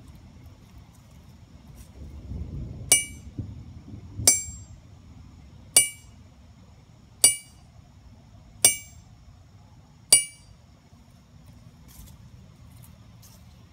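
A 71 lb Kohlswa Swedish steel anvil struck six times at an even pace, each blow giving a sharp, clear ring that dies away quickly.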